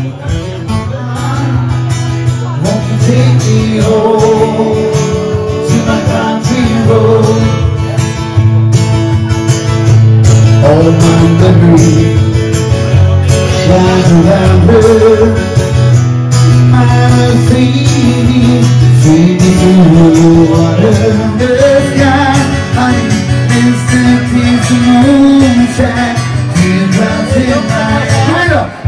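Live acoustic guitar music with a male voice singing.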